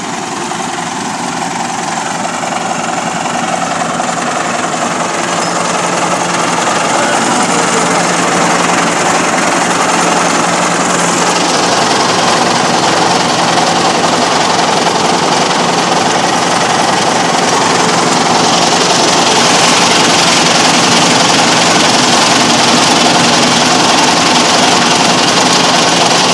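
An engine running steadily and getting gradually louder, with more high-pitched noise coming in about halfway through.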